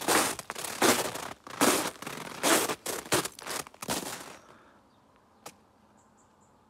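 Boots crunching through crisp, frozen snow, one step a little under a second apart; the footsteps stop about four seconds in. A single sharp click follows a second or so later.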